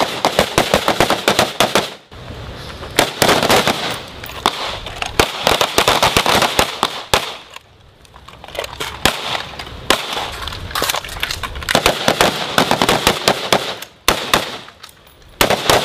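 Rapid gunfire from several shooters firing at once, in strings of a few seconds broken by short pauses: carbine fire at first, then handgun fire.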